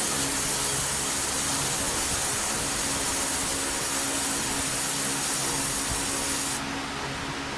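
70 W SPI fiber laser marking machine engraving deep into copper: a steady hiss from the beam ablating the metal, over a faint low steady hum. Late on the hiss loses its top end and gets slightly quieter.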